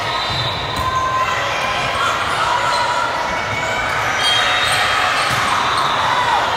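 Indoor volleyball rally in a large, echoing sports hall: the ball is served and struck back and forth over a background of spectators' and players' voices, which grow a little louder in the second half.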